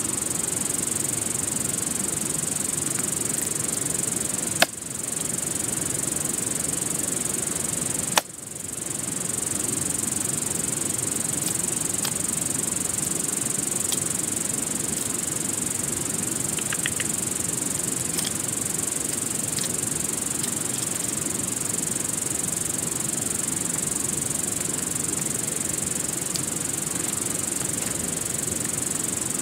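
Hatchet chopping limbs off a branch: two sharp strikes about four and a half and eight seconds in, then a few much lighter taps, over a steady rushing hiss.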